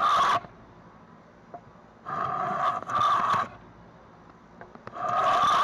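Stanley No. 5 hand plane, its blade freshly sharpened, taking scraping strokes along wood: a short one at the start, a longer one about two seconds in and another near the end, with a few light taps between.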